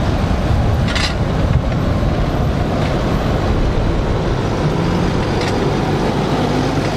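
Fendt Vario 820 TMS tractor's six-cylinder diesel engine running steadily as the tractor drives past with its mulchers raised, with a brief clatter about a second in.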